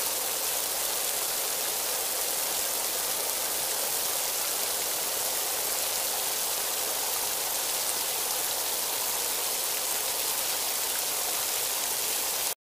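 Breaded croquetas deep-frying in a pan of hot oil: a steady, even sizzle.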